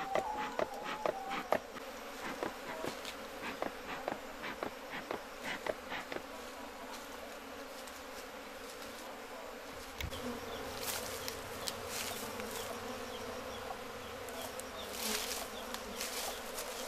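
A honeybee colony buzzing steadily as the bees cluster and crawl at the entrance of a wooden hive box they have just been moved into from a log hive. There are scattered ticks in the first few seconds, and a low rumble joins about ten seconds in.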